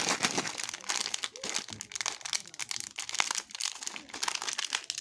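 Plastic candy wrapper crinkling, with dense, irregular crackles as the packet is handled and unwrapped.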